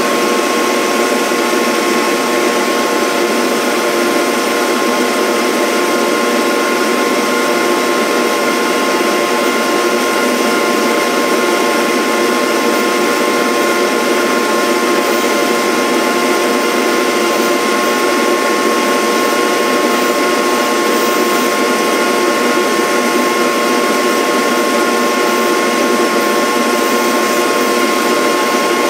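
Small high-speed motor running steadily under load with a constant high whine, typical of the powered cutter spindle on a rose engine lathe taking a cut in the wood.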